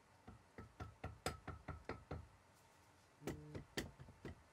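Rubber mallet tapping around the aluminium cylinder head of a Kawasaki ZX-7R's 748cc inline-four, to free the head for removal: a quick run of light knocks, a pause of about a second, then a few more.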